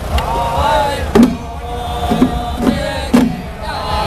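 Small hand-held drums of a Taiwanese temple "small dharma drum" (xiao fagu) troupe, struck in a slow, uneven beat, with the troupe chanting over them.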